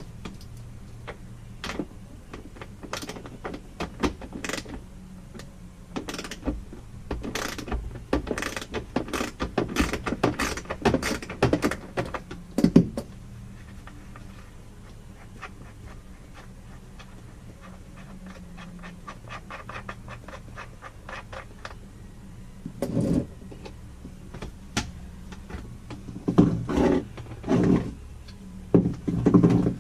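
Hand tools clicking and knocking against metal bolts and the toilet base while an RV toilet's floor bolts are taken out, in irregular clusters of sharp clicks with a quieter stretch of faint ticking in the middle. A faint steady low hum runs underneath.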